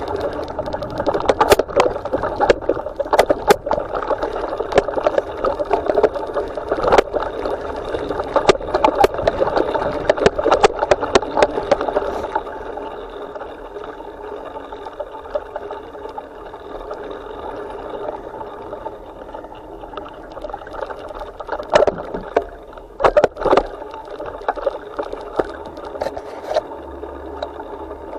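Bicycle riding over a bumpy dirt trail: tyre rumble with the rattle and sharp knocks of the handlebar-mounted camera jolting over bumps. The ride is heavily knocking for about the first twelve seconds, then steadier and quieter, with another burst of knocks near the end.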